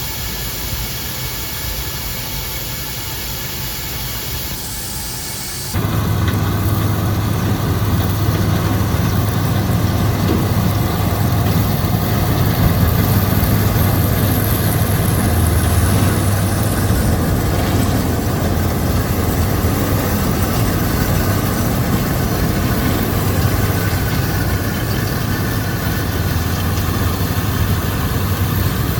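John Deere 4400 combine's diesel engine and machinery running steadily with a thin high whine. About six seconds in the sound jumps suddenly to a louder, deeper steady hum.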